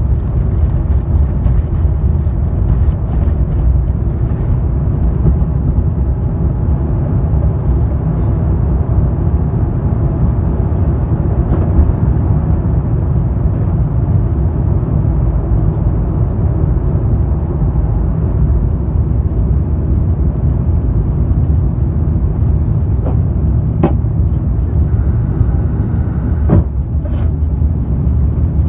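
Jet airliner cabin noise during takeoff: the steady, loud rumble of the engines at takeoff power as the plane leaves the runway and climbs. A few short clicks and a knock come near the end.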